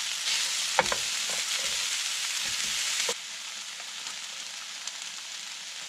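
Chicken and peppers sizzling in a hot frying pan while a wooden spatula stirs and scrapes, with a few knocks of the spatula against the pan. The sizzling drops a little about three seconds in.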